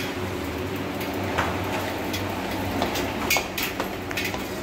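Steady low hum with scattered light clicks and knocks from a bicycle being wheeled and handled.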